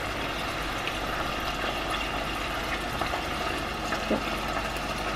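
Minced meat frying in a saucepan, a steady sizzle with a few faint crackles.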